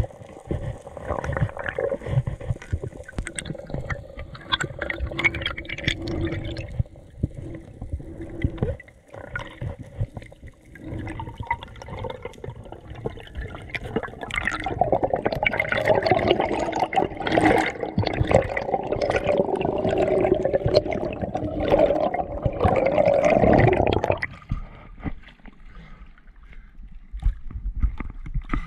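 Underwater water noise through an action camera's waterproof housing during a freedive: gurgling and rushing water with scattered knocks. It grows louder and denser about halfway in, then eases off a few seconds before the end.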